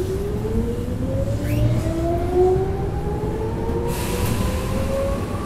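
Running sound inside the motor car of a chopper-controlled Tokyu 8590-series electric train accelerating away from a station in a subway tunnel. The traction motor whine climbs steadily in pitch as speed builds, over the low rumble of the wheels, and a rushing hiss joins about four seconds in.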